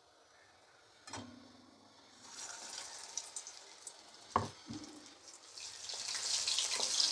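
Besan-battered fish dropped into hot oil in a steel kadai: sizzling starts about two seconds in and swells loud near the end as another battered piece goes in. A couple of knocks in between, the sharpest about four seconds in.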